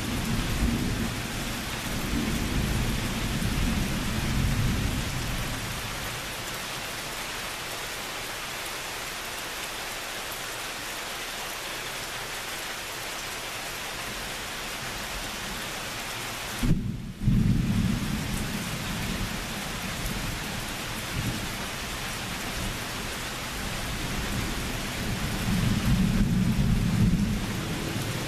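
Steady rain hissing down, with rolling thunder. Low rumbles come in the first few seconds, a sudden louder thunderclap about 17 seconds in rumbles on for a couple of seconds, and another rumble comes near the end.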